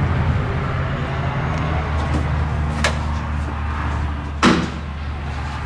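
A single heavy thump about four and a half seconds in, with a lighter click a little before it, over a steady low hum.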